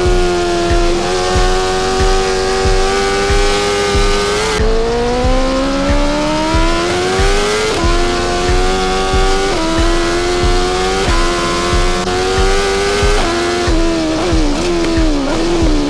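BMW S1000RR inline-four sportbike engine accelerating through the gears. The pitch climbs steadily and drops sharply at each upshift, several times over. A steady low thump beats along underneath, a little over once a second.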